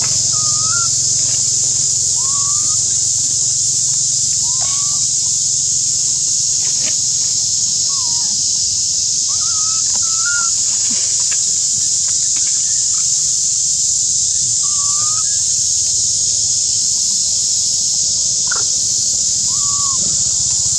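A steady, high-pitched insect chorus, with short rising chirping calls over it every second or two.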